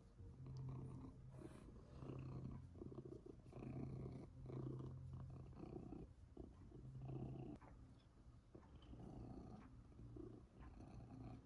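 Long-haired domestic cat purring while being stroked: a soft, low purr that swells and fades with each breath, about once every second and a half.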